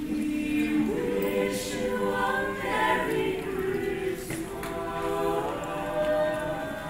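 Mixed a cappella vocal ensemble of men and women singing in close harmony, holding long sustained chords that step up in pitch about a second in.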